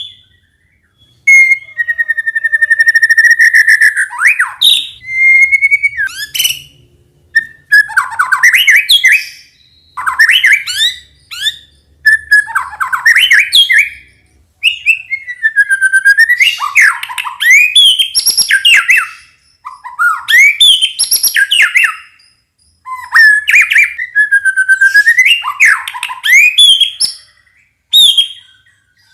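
White-rumped shama (murai batu) song: loud, varied whistled phrases of a second or two each, with sweeping, looping notes and quick high trills, broken by short pauses. It is played as a lure song to prompt young shamas to start singing.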